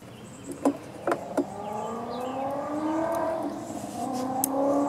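A few light metal clicks as the two-stroke cylinder is worked over the piston by hand. Then a steady engine hum rises in the background, its pitch slowly climbing and wavering.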